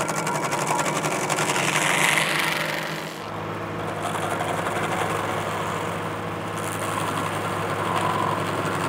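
John Deere 3320 compact tractor's three-cylinder diesel running steadily under PTO load, driving a Baumalight 1P24 stump grinder whose cutter wheel is chewing into a stump, with the gritty rasp of wood being ground. The grinding swells about one to three seconds in.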